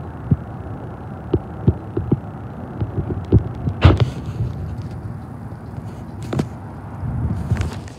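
Wind buffeting the microphone: a steady low rumble with irregular low thumps, and a few sharper knocks about halfway through and near the end.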